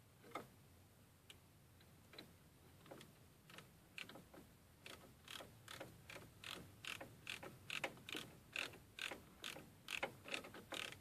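Hand ratchet wrench clicking as it is worked, a few scattered clicks and then a steady run of about two to three clicks a second from about four seconds in.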